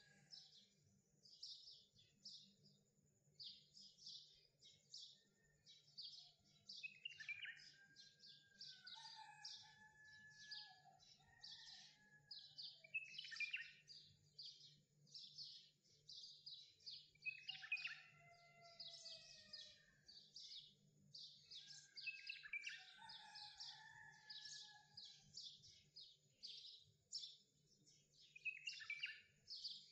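Faint birdsong: a rapid string of short high chirps, with a longer sliding whistled phrase about every five seconds. A faint steady low hum lies underneath.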